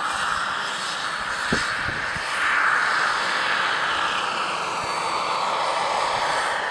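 Radio-controlled scale model helicopter flying low past and climbing away, its rotor and drive noise swelling about two and a half seconds in and then easing off. A few short low knocks come at about one and a half to two seconds.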